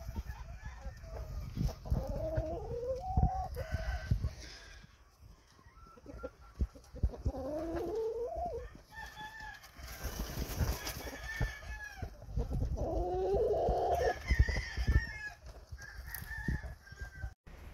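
Roosters crowing about three times, with some clucking in between, over a steady low rumble and buffeting thumps on the microphone.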